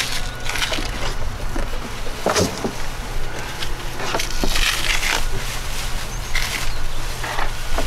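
Plastic wrapping crinkling in short bursts as the folded handle of a new Honda HRN216 lawnmower is lifted and moved, with a knock about two and a half seconds in, over a steady low rumble.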